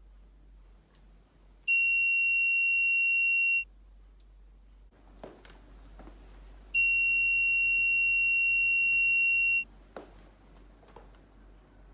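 Homemade laser alarm's electronic buzzer going off twice with a steady high-pitched tone: about two seconds, then, after a pause, about three seconds. Each time the alarm is triggered. Faint clicks and knocks come between the tones and after them.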